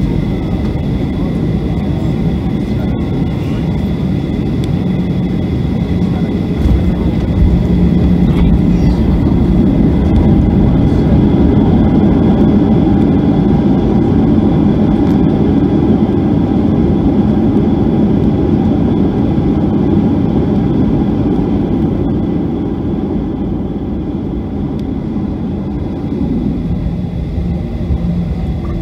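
Jet airliner heard from inside the cabin on landing: dense engine and rushing-air noise with a steady high whine. The noise swells about seven seconds in and eases off after about twenty seconds.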